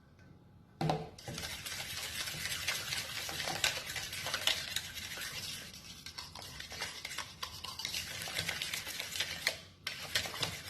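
Cheesecake batter of cream cheese and egg being mixed by hand in a bowl: a utensil scraping and clicking rapidly against the bowl, starting about a second in and pausing briefly near the end.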